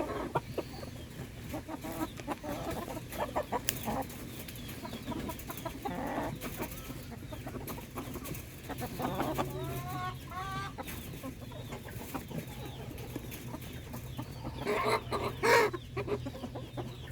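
Silkie bantam chickens clucking and calling while they feed, with scattered light tapping clicks; a louder burst of calls comes about fifteen seconds in.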